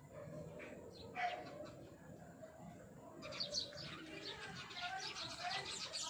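A chorus of many small birds chirping and twittering in the trees: a few scattered chirps at first, turning into dense, overlapping chirping and fast trills about three seconds in.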